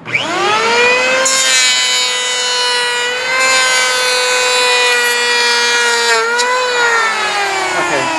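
Porter-Cable 6-amp electric hand planer: the motor starts and spins up to a steady high whine, then the cutter head shaves wood for about five seconds, adding a hiss. Near the end the cutting stops and the motor winds down with a falling whine.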